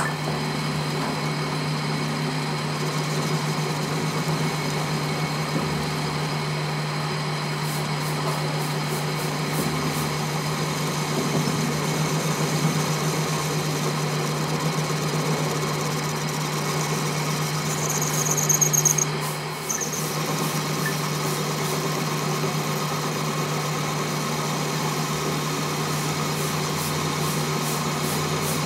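Metal lathe running with a steady hum while the cutting tool faces the end of a steel gear shaft, with a continuous cutting noise. A brief high squeal sounds about two-thirds of the way through, and the hum dips for a moment just after.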